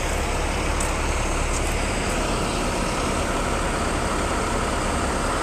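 Steady low engine rumble with a constant hiss, typical of heavy diesel tow trucks idling.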